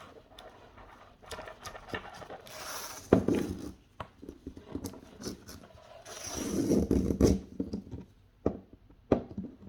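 A collar strap being woven through the strap slots of a dog training collar's receiver: rubbing and scraping as the strap slides through, with small clicks and taps from handling. Two longer scraping passes come about three seconds in and again around six to seven seconds in.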